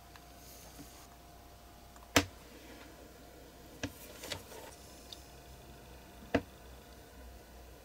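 Small-tool handling noises: a handful of sharp clicks and taps from tweezers and small parts against a cutting mat, the loudest about two seconds in and another near the end.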